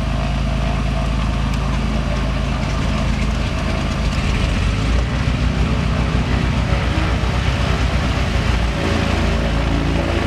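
The Cessna 310R's two Continental IO-520 six-cylinder engines running at low rpm just after start, heard from inside the cockpit. From about four seconds in the sound pulses with an uneven beat, then settles to a steadier run near the end.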